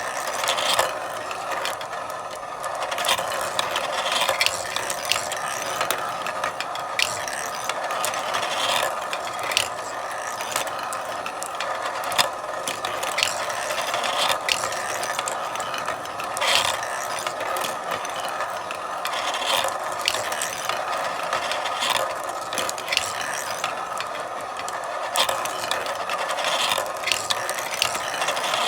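Marbles rolling and clattering along a marble run track: a continuous rolling rattle dotted with frequent, irregular sharp clicks as marbles knock against the track and each other.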